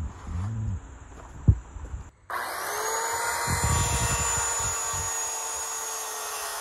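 A low rumble and one sharp knock, then after about two seconds a Ryobi circular saw starts up and runs steadily with a constant whine while ripping a pressure-treated board lengthwise.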